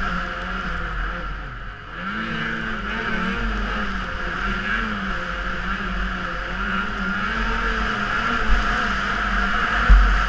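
Snowmobile engine running under throttle, its pitch rising and falling again and again as the throttle is worked, with a brief drop about two seconds in. Two short low thumps come near the end.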